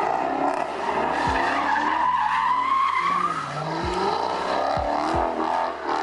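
Car drifting: tires squealing under wheelspin over the engine running hard, with one long squeal rising slowly in pitch about a second in.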